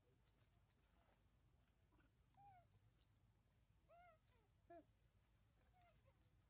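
Faint, short, arching squeaks from a baby monkey, several of them, bunched together about four to five seconds in. Faint high chirps repeat about once a second behind them.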